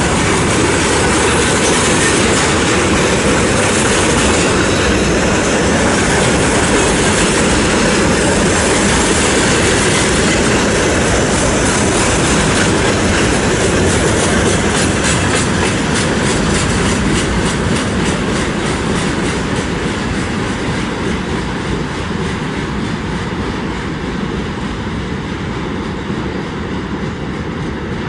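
Freight train of container flatcars and tank cars rolling past close by: a steady rumble of steel wheels on rail with a regular clickety-clack over the rail joints. The noise eases off over the last ten seconds or so.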